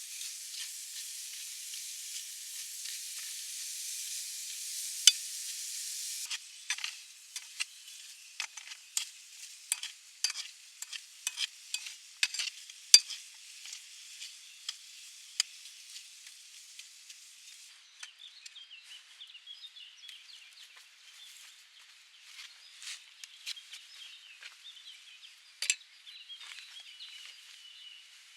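Food sizzling and frying in a pan: a steady hiss that breaks up after about six seconds into scattered sharp pops and crackles, which thin out over the second half.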